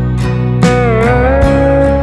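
Background music with a steady beat and sustained low notes. About half a second in, a held note bends down and up in pitch, then settles and holds.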